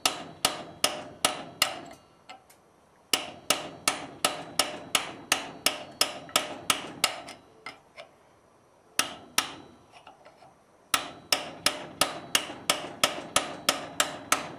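Hand hammer striking a chisel that is cutting out a square in a steel plate: runs of ringing metal blows, about three a second. Two longer runs are separated by a pause with two lone blows, and a third run fills the last few seconds.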